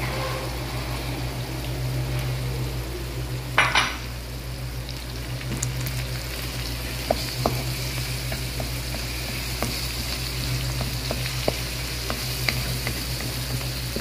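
Scrambled egg mixture sizzling in hot oil in a non-stick kadai while a wooden spatula stirs and taps it against the pan, with a low steady hum underneath. One louder stroke about four seconds in.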